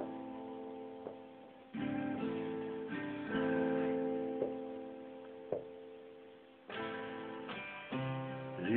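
Acoustic guitar playing strummed chords, each struck and left to ring and fade before the next, about four chords in all.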